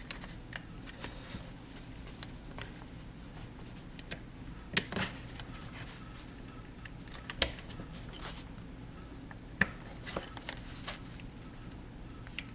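Scattered sharp clicks and light clacks of Glock pistol parts being handled and fitted together during reassembly, the loudest three spaced a couple of seconds apart, over a steady low hum.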